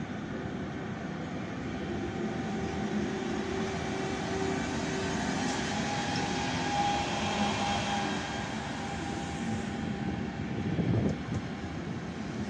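Thalys high-speed train (PBKA set 4306) rolling slowly past along the platform: a steady rumble of wheels and running gear with several held humming tones. It peaks in a brief louder low surge about eleven seconds in.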